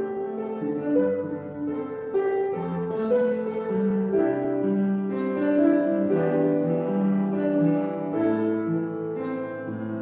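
Slow instrumental music on a keyboard instrument: sustained, overlapping notes that change about every second.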